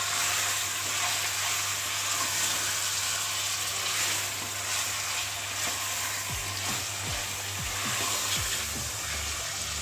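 Mutton pieces sizzling steadily as they fry in hot oil in a pressure cooker over a high flame, stirred now and then while they brown.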